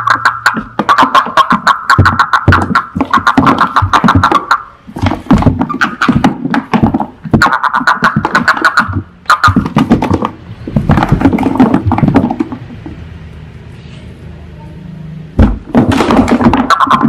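Toads calling in rapid pulsed trills, one call after another with short gaps. The calls stop for a few seconds near the end, a single thump follows, and then the calls start again.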